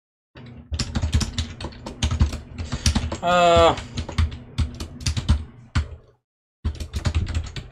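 Computer keyboard typing in quick runs of keystrokes, with a short break a little after six seconds in. A brief pitched sound, the loudest moment, comes a little past three seconds in.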